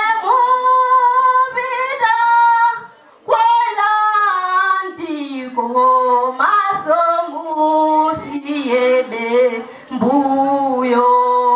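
A woman singing unaccompanied into a handheld microphone: held notes in phrases broken by short pauses.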